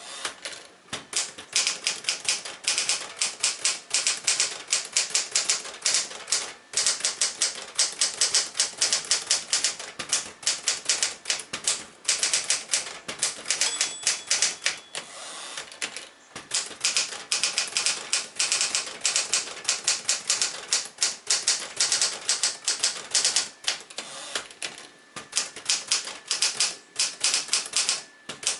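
1964 Smith-Corona Galaxie manual portable typewriter being typed on at a fast, steady pace: rapid clacking keystrikes with a few brief pauses. The machine has been cleaned and adjusted and is working as it should.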